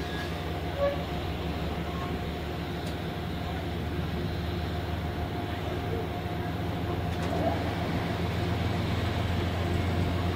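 Amtrak passenger train starting slowly out of the station: a steady low engine hum with a faint steady tone above it, growing gradually louder as the train begins to roll.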